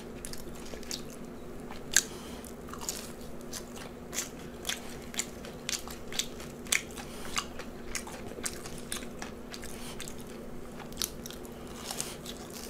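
Crisp, close-up crunching and chewing of breaded zucchini fries, with a sharp crunch every half second or so, the loudest about two seconds in.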